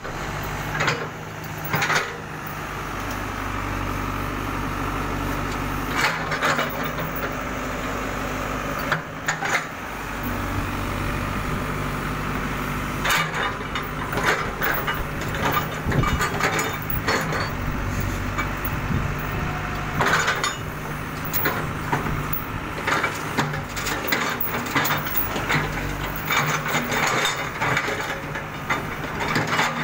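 Old tracked hydraulic excavator working: its diesel engine runs throughout, with the pitch and level shifting as the boom and bucket dig into soil. Frequent metallic clanks and knocks come from the bucket and linkage, more often in the second half.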